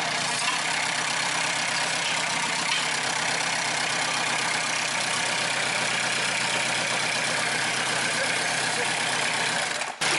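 Diesel engine with a rotary injection pump idling steadily, on test run after its idle regulator and throttle cable were adjusted to cure harsh, noisy running. The sound drops out briefly near the end.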